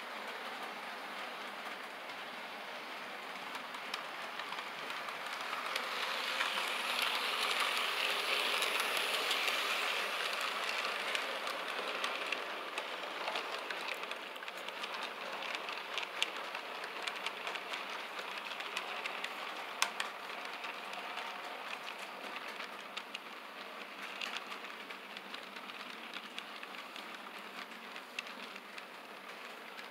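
HO scale model freight train rolling past close by: a steady whir of small metal wheels on the track with scattered clicks, growing louder to a peak about a quarter of the way in and then slowly fading.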